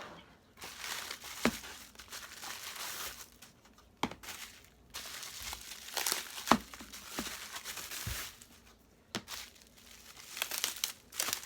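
Plastic packaging being handled and crinkled in several bursts, with a few sharp taps and clicks; the loudest click comes about six and a half seconds in.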